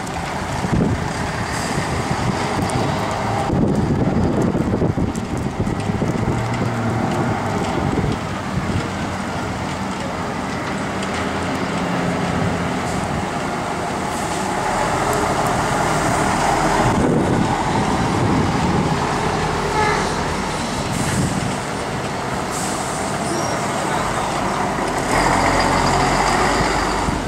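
Diesel buses pulling away and passing one after another, their engines running and accelerating, with a short air-brake hiss partway through. Among them is a high-floor Volvo bus.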